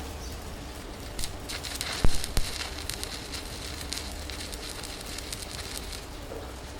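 Electric arc welding crackling and hissing steadily, stopping about six seconds in. A few sharp metallic knocks come around two seconds in, the loudest sounds of the stretch.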